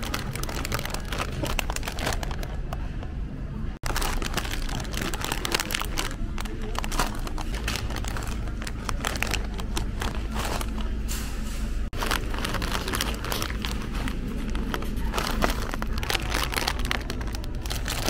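Plastic chip bags of Doritos and V-Cut crinkling and crackling as they are gripped and handled. The rustle runs on steadily and is cut off for an instant twice.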